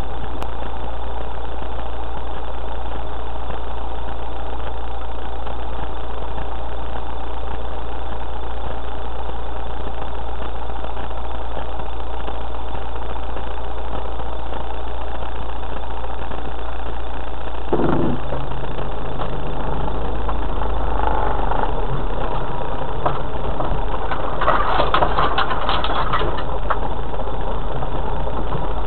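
Off-road 4x4's engine idling steadily, then the vehicle moving off along a rough stony track. A single knock comes about two-thirds of the way in, followed by a few seconds of rattling jolts near the end.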